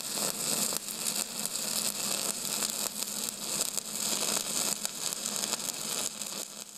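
Steady, crackling hiss, strongest in the high range, over a faint low hum; it cuts off abruptly at the end.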